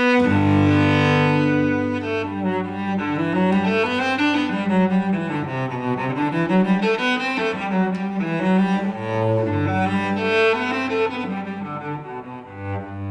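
Solo acoustic cello, a 1694 Guarneri, played with the bow: it opens on a held low note, moves through a flowing run of changing notes, and settles back on held low notes about nine seconds in and near the end.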